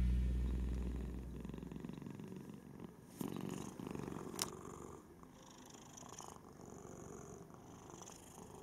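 A cat purring steadily as the last of the background music fades out in the first couple of seconds. A brief rustle comes about three seconds in, and a sharp click a little over four seconds in.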